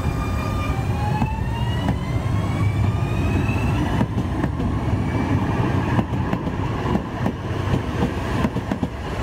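Alstom Citadis Dualis tram-train accelerating away, its traction motors giving a whine that rises in pitch over the first few seconds, over a low rolling rumble. From about four seconds in, sharp clicks and knocks come from the wheels running over rail joints and points.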